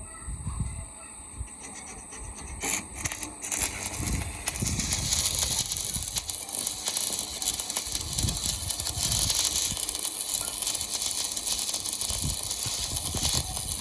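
Electric arc welding: a few sharp clicks, then a loud, even crackling hiss that starts about four seconds in and carries on.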